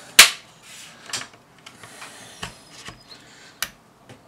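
Plastic clicks and light scraping as a thin credit card is worked into the seam of an EE Smart Hub router's plastic case to pry its clip tabs loose. One sharp, loud click comes just after the start, then a few fainter clicks.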